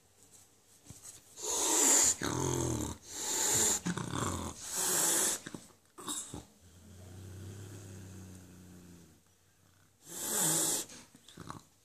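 Persian cat hissing: several loud, harsh hisses in the first half and another about ten seconds in, with a low, steady grunting growl in between.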